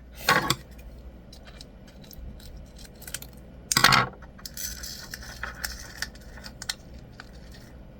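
Rainbow sprinkles from a slime kit rattling in their small container and clicking down as they are shaken out over the slime, with two louder clatters, about half a second in and about four seconds in.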